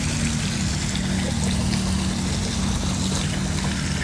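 Steady outdoor background noise: a low, even hum under a constant hiss, with no distinct events.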